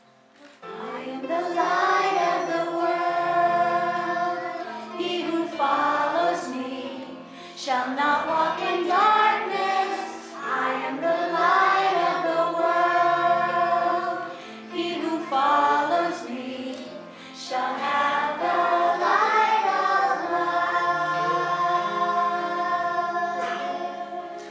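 Children's choir singing a song in unison over an instrumental accompaniment, coming in about a second in after a brief hush.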